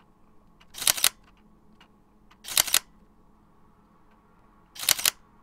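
DSLR camera shutter sound effect firing three times, about two seconds apart, each shot a quick double click.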